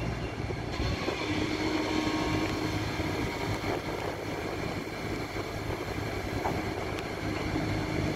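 Heavy diesel engine running with a steady low rumble. A faint steady hum comes in for a couple of seconds, twice.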